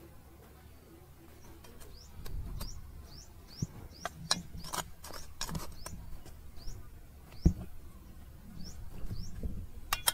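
A small bird repeating a short, high, rising chirp about twice a second, over scattered sharp clicks and knocks of stone. One loud knock comes about seven and a half seconds in.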